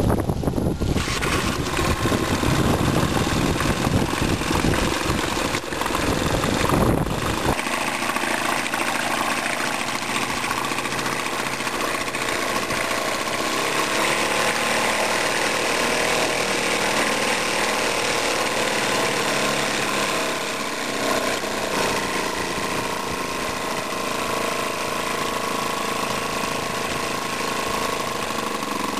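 1997 Evinrude 2 HP outboard's small two-stroke engine running steadily at idle, with a rapid, even, rattling beat. Heavy wind rumble on the microphone covers the first several seconds and drops away about seven seconds in.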